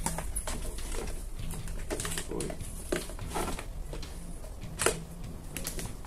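Irregular plastic clicks and knocks as the grille and motor housing of an Arno Turbo Silêncio Maxx fan are handled and fitted back together, about eight in all, the loudest a little before the end.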